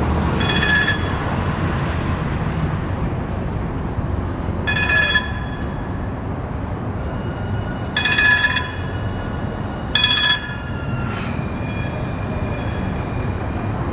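Muni Siemens S200 light-rail train pulling slowly into the platform, sounding its bell in four short rings a few seconds apart, over a steady low rumble of the train and street.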